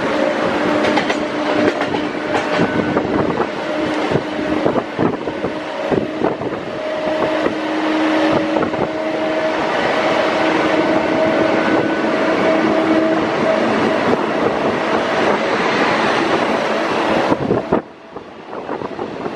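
Two trains running side by side at speed: the rumble and rapid clatter of Rajdhani Express coach wheels over rail joints a few feet away, with a steady low hum under it. About 18 seconds in, the noise drops suddenly as the train's WAP-7 electric locomotive goes past and the gap opens.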